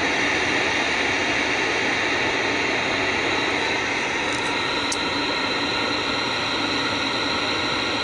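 Steady static hiss from the speaker of a 1970s KMC black-and-white tube TV with no signal tuned in, the sound that goes with the snow on its screen.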